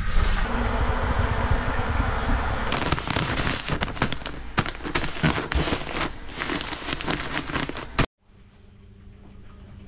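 A steady rushing noise, then, from about three seconds in, a clear plastic bag of crushed malt and oats crinkling and crackling as a hand presses and handles it. The sound cuts off suddenly near the end.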